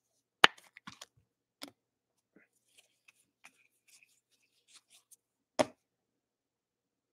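Trading cards and a clear plastic card holder being handled on a tabletop: light clicks and rustling, with two sharp taps, one about half a second in and a louder one about five and a half seconds in.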